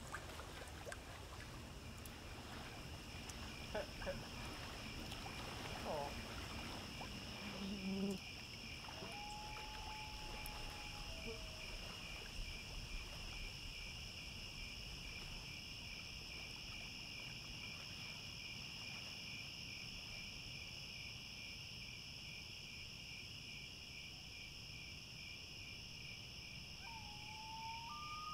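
Night insect chorus of crickets, a steady high trilling with a fine rapid pulse. A few soft knocks come in the first several seconds, a couple of short whistle-like calls about ten seconds in, and a brief rising call near the end.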